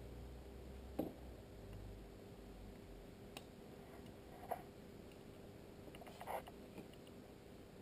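A few faint clicks and light taps of small plastic and electronic parts being handled while an IP camera is assembled, a second or two apart.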